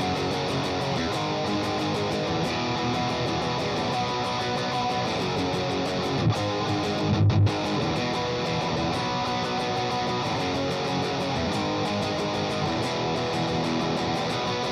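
Soloking SJT-200 electric guitar being played in a continuous run of notes and chords. A few louder low hits come about halfway through, with a brief break in the sound.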